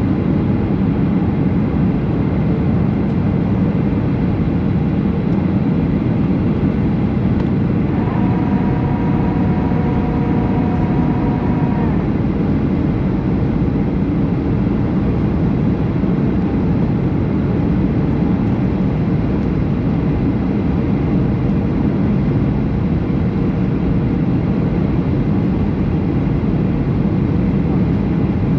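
Boeing 737 airliner cabin noise: a steady, loud rush of engine and airflow noise. About a third of the way in, a steady two-pitch tone sounds for about four seconds, then stops.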